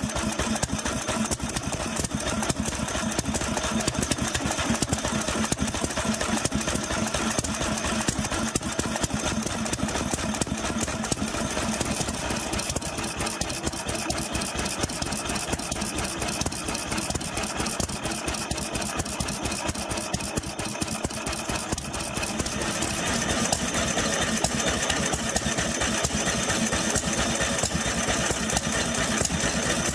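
Two 2 HP Sundial stationary engines, a Type A and a Type B, running together: a steady, rapid stream of engine knocks and valve-gear clicks, a little louder from about 23 seconds in.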